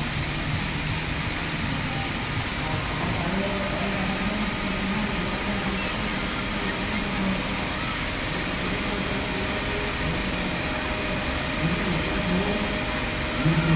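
Water from a tiered bronze fountain pouring and splashing steadily into its basin, with faint voices in the background.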